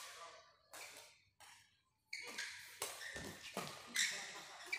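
Badminton rackets hitting a shuttlecock in a doubles rally: sharp hits a second or less apart, each ringing off in a large hall. There is a short pause near the middle, then more hits mixed with short squeaks of court shoes.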